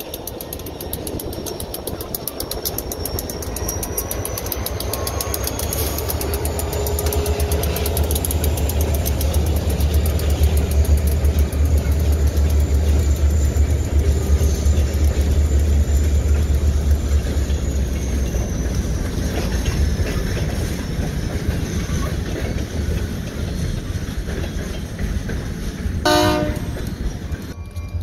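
Diesel freight train passing: the locomotive's engine and the wheels of covered hopper cars on the rails make a heavy rumble that builds to its loudest in the middle and then eases off. Near the end the locomotive gives a short horn blast.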